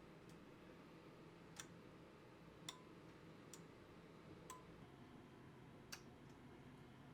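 Near silence broken by about five faint, sharp clicks at uneven intervals, a few of them with a brief faint ping after them.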